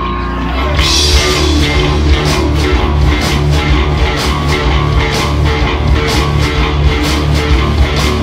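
Live rock band with electric guitars and a drum kit starting a song: a steady bass line, then the full band comes in about a second in with a regular drum beat.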